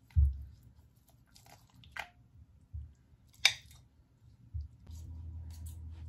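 Cutlery handling on a ceramic plate: a dull knock at the start, then a few sharp clinks and softer knocks. A low steady hum sets in near the end.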